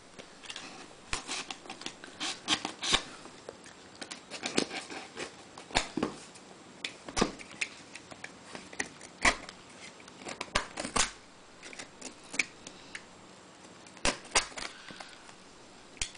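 Cardboard shipping box being handled and turned over on a wooden tabletop: irregular knocks, taps and short scrapes of cardboard against wood and hands.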